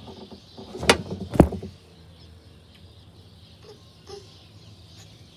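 Two sharp knocks about half a second apart, typical of a phone being handled and set down, followed by a faint steady background.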